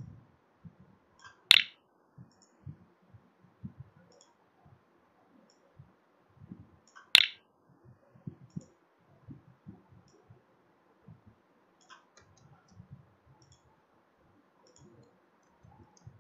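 Computer mouse clicking while blocks are dragged and dropped: two sharp, loud clicks several seconds apart, among fainter scattered clicks and soft low thumps.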